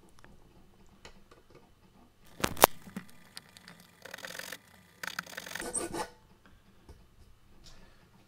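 A file rasping across the end of a stainless steel threaded rod held in a vise, cutting a screwdriver slot: a sharp metallic click just over two seconds in, then two short filing strokes.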